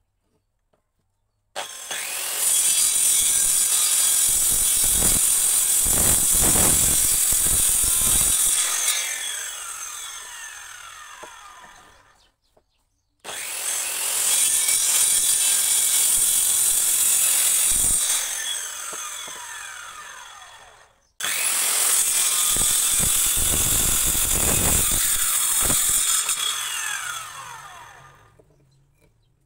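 Handheld electric circular saw cutting through wooden sticks three times: each time the motor starts suddenly, runs for about seven seconds, then winds down with a falling whine.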